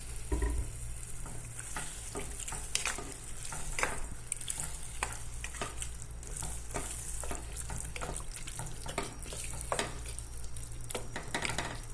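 A spoon stirring chicken curry in a saucepan, with irregular scrapes and clinks against the pan over a steady sizzle.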